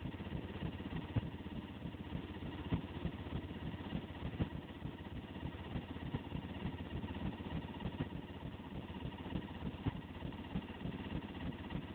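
Loud dance music from loudspeakers in a heavily distorted, low-fidelity recording, coming through as a dense low din with frequent beat pulses.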